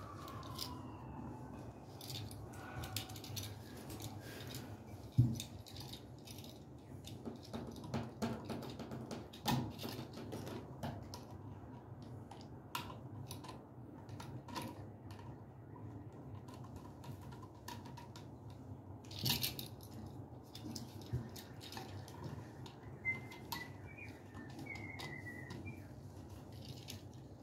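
Screwdriver working the terminal screws of a 15 amp duplex receptacle held in the hand: scattered small metal clicks and scrapes, with one louder knock about five seconds in.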